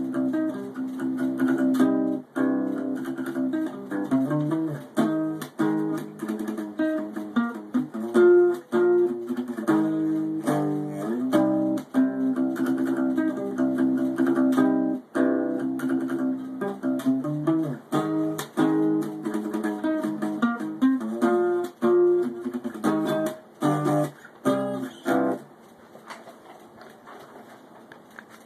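Acoustic guitar played as a riff of plucked and strummed notes, broken by short pauses and quick stops. The playing stops a few seconds before the end, leaving only faint rustling.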